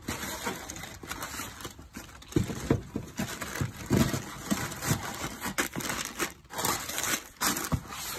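Shoebox tissue paper crinkling and rustling in an irregular, crackly run as sneakers are handled and packed back into their box.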